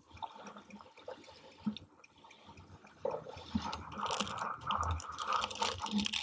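Foil blind bag of a Tokidoki Mermicorno figure crinkling and tearing as it is opened by hand: faint scattered crackles at first, then denser, louder crinkling from about halfway.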